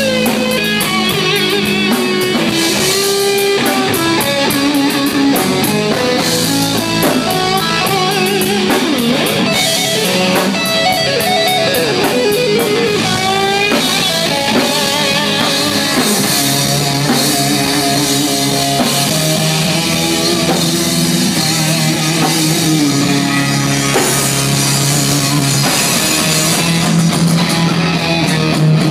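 Live rock band playing loud: electric guitar lines over bass guitar and a drum kit, with no break in the music.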